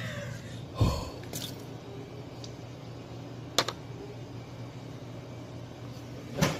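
A low steady hum with a few handling knocks at a kitchen workstation: a dull thump about a second in, a sharp click a little past halfway, and another click near the end.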